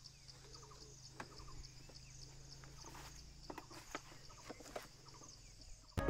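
Insects chirping in the grass: a steady stream of evenly repeating high-pitched pulses, with a faint low hum and a few soft clicks beneath.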